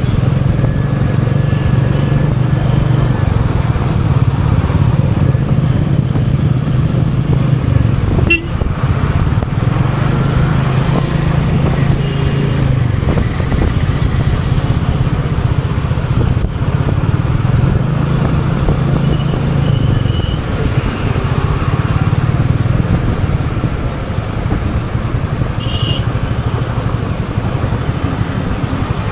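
Royal Enfield Meteor 350's single-cylinder engine running steadily in easy city riding, easing off a little near the end. Short vehicle-horn toots sound now and then in the traffic.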